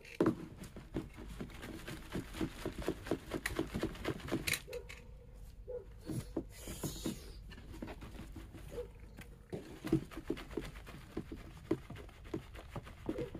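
Organic potting soil being shaken through a plastic screening tub into a plastic bin below. It makes a run of quick, uneven rattling and pattering strokes, several a second, as the soil is sifted to get the big pieces out.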